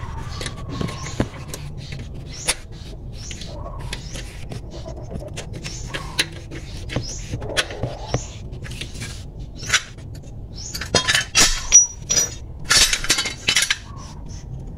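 Wrench working a bolt while a starter motor is fitted under a car, making scattered metallic clicks and clinks. A louder run of clattering metal near the end.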